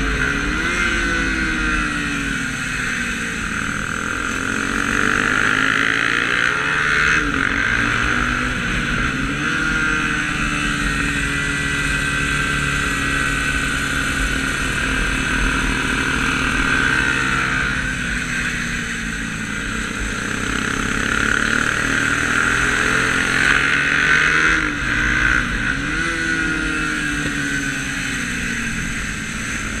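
Motorcycle engine heard from an onboard camera at speed, its pitch rising and falling repeatedly as the rider accelerates out of corners and backs off or shifts gear into them, with wind and road noise rushing on the microphone.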